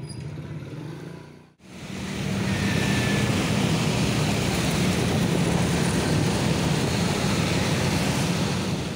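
A motorcycle riding along a road: steady engine noise under loud wind rush on the microphone. It starts abruptly about a second and a half in, after a short stretch of faint low hum.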